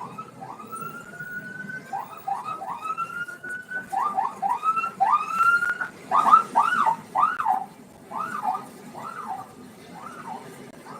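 Basuri telolet bus horn playing its melody: a run of rising horn notes, loudest in the middle, then quicker rising-and-falling notes at about two a second.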